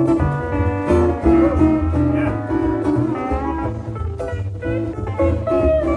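Background music with plucked guitar over a steady bass line.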